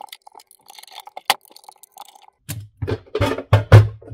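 A small screwdriver backs out the last case screws with faint clicks and one sharp tick. Then the pressed sheet-metal top cover of a TP-Link TL-SG1016PE switch is slid off and lifted, giving a run of irregular scraping and clanking with a low metallic rumble, loudest about three and a half seconds in.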